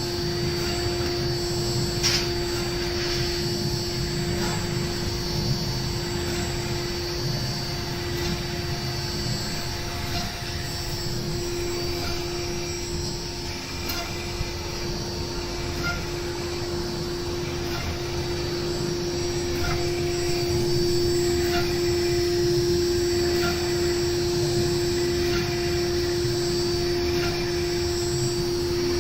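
A 1325-format CNC router running, its spindle giving a steady high hum over a constant rushing noise, with a few faint ticks.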